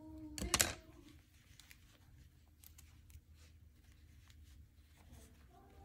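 Faint rustling and small clicks of hands handling a crocheted yarn ornament and a needle. A short loud noise comes about half a second in.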